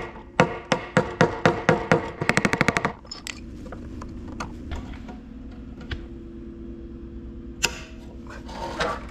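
Sharp, ringing strikes of a tool working at a hacked-off nail stuck in a 4x4 board: about three blows a second for two seconds, then a quick flurry of rapid taps, then a few single clicks over a low steady hum.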